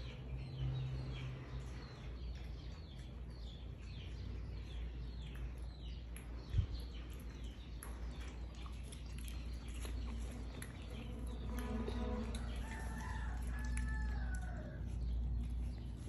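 Birds calling in the background: a quick run of short falling peeps, then about twelve seconds in a longer drawn-out call in several rising and falling parts, over a low steady rumble.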